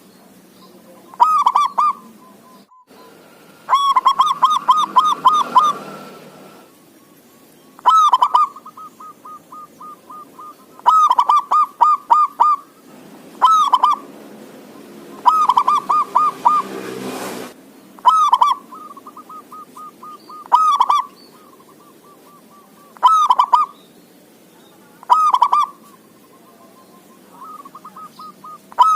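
Male zebra dove (perkutut) singing: short phrases of quick, rippling coo notes every two to three seconds, with softer trailing notes between phrases.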